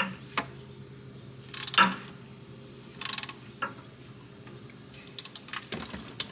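Ratchet, 3/8-inch socket and extension clicking and clinking in short irregular bursts while turning out a quarter-turn oil drain plug, with a quick run of ratchet clicks about three seconds in.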